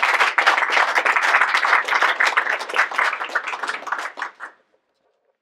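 Small audience applauding with many quick claps, tailing off about four seconds in.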